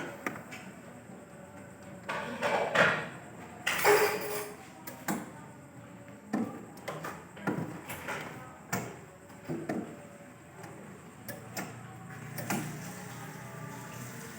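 Handling noises while working on a refrigerator: a series of knocks and clatters, loudest a few seconds in, then shorter knocks about once a second.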